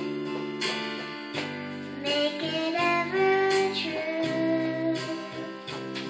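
Electronic keyboard playing a plucked, guitar-like accompaniment, with a young girl singing a worship song over it.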